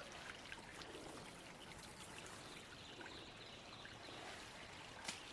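Faint, steady running water of a small waterfall.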